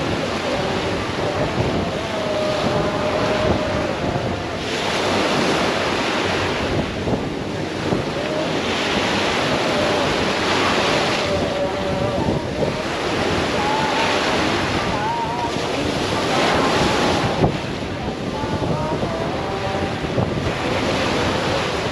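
Small waves breaking and washing up a sandy beach, swelling and easing every few seconds.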